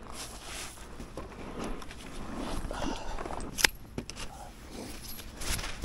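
Scattered rustling, footsteps and knocks of a small fishing boat and its gear being handled as it is launched, with one sharp click about three and a half seconds in.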